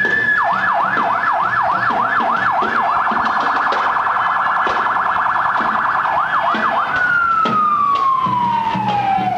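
Electronic emergency-vehicle siren cycling through its modes: fast yelp sweeps at about four a second, a stretch of still faster warble in the middle, a few more yelps, then a long wail sliding down in pitch near the end.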